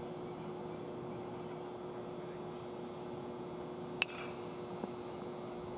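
Steady electrical hum on the recording, with one sharp crack about four seconds in that rings briefly, and a smaller click just under a second later.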